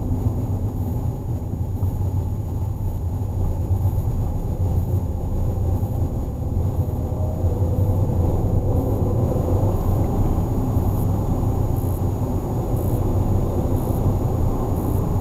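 Car driving at low speed, its engine and tyre noise heard from inside the cabin as a steady low rumble. A faint engine note rises a little partway through.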